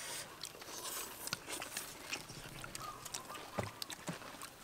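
Crispy deep-fried onion-and-egg fritters being broken apart by hand and chewed by several people: an irregular scatter of small sharp crackles and clicks.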